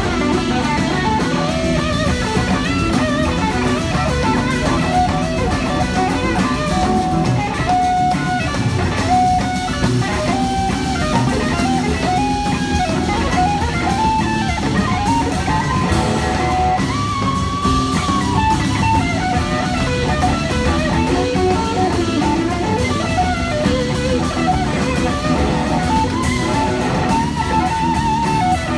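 A live rock band playing: an electric guitar carries a lead line over a drum kit and the rest of the band.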